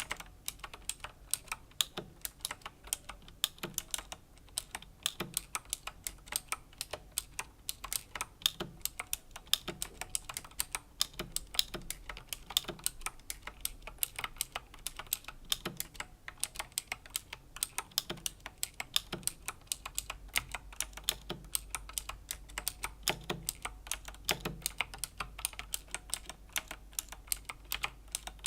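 Razer BlackWidow Chroma V2 mechanical keyboard with clicky Razer Green switches being typed on slowly and steadily: a continuous run of sharp key clicks, several a second, with a deeper thud about once a second.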